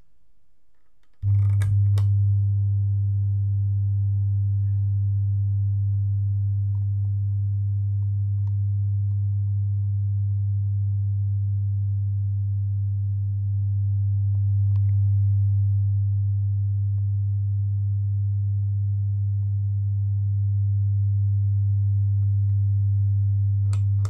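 Geepas home theater speaker unit giving off a deep, steady electrical hum with fainter higher overtones. It comes in with a click about a second in and cuts off with a click at the end. The hum is the sound fault in the home theater.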